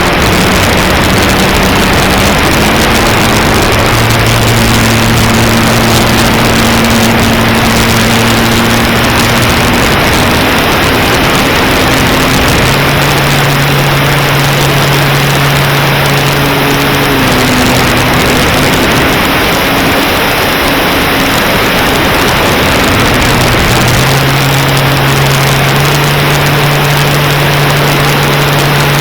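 Aircraft engine and propeller droning under heavy wind rush. Its pitch holds for several seconds at a time, then steps up or down as the throttle changes.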